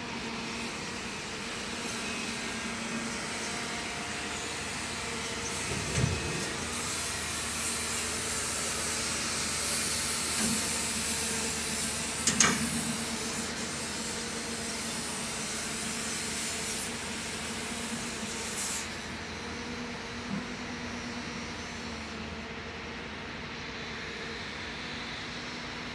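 Steady machinery running with a hiss, with a few knocks, the loudest about six and twelve seconds in; the top of the hiss falls away about three-quarters of the way through.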